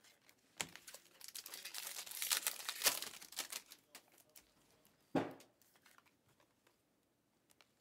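Trading-card pack wrapper being crinkled and torn open: a dense crackling rustle for about three seconds, then a single short thump about five seconds in.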